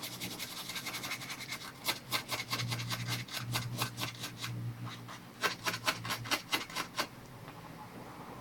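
Stiff, short-trimmed brush scrubbing a laptop circuit board wet with isopropyl alcohol, in quick scratchy strokes several a second that stop about seven seconds in. It is scrubbing off leftover solder flux and dirt around the desoldered DC jack holes.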